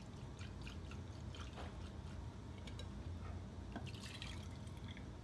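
Faint splashing and drips of hot preheating water being emptied from a glass French press into a glass carafe.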